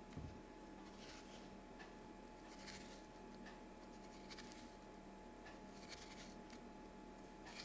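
Faint, irregular strokes of a chef's knife scoring a crosshatch into the cut face of a courgette half. The blade slices the soft flesh and touches a bamboo cutting board.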